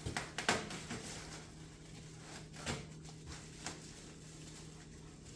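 Packaging being handled as parts are worked out of the box: a quick cluster of scrapes and knocks at the start, then two more single knocks about a second apart, over a faint steady hum.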